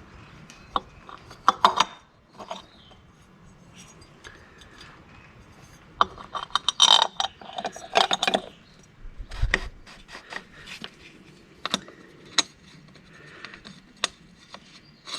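Hand work on the power steering pump reservoir lid as it goes back onto the pump with its new gasket: scattered metal clicks, knocks and rubbing, with a dull thump about nine seconds in.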